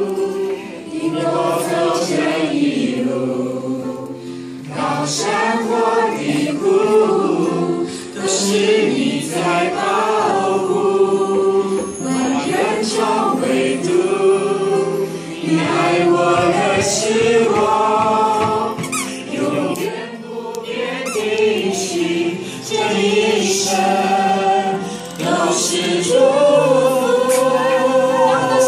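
A small group of women singing a worship song together into microphones, amplified, over instrumental backing music, in phrases with short breaks between them.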